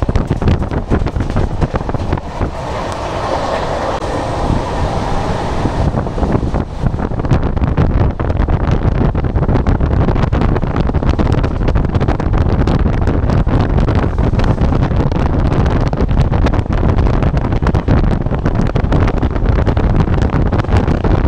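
Rajdhani Express coaches running fast over the rails, the wheels' rumble and clatter mixed with rushing wind on the microphone at the open door; a stretch of louder hiss comes a few seconds in.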